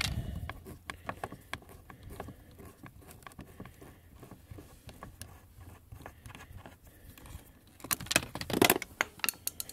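Screwdriver working a screw out of a metal dashboard bracket, with a scatter of small clicks and ticks. Near the end a louder burst of clicking and handling noise as the screw is taken out by hand.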